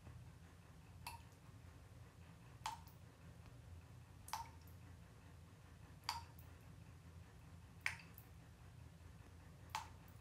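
Water drops falling one at a time into a bathtub, six sharp plinks at an even pace of about one every 1.7 seconds, over a faint low hum.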